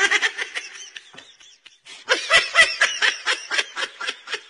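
A person laughing hard in a run of quick ha-ha pulses, about five a second. The laugh fades after about a second, then breaks out again louder about two seconds in and keeps going.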